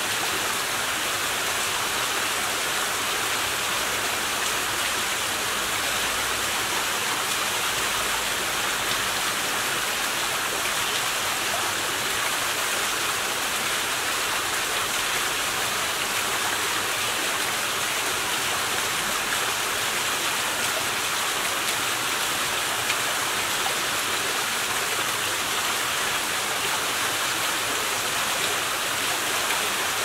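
Small waterfall spilling over rocks into a pool: a steady, even rush of water with no change.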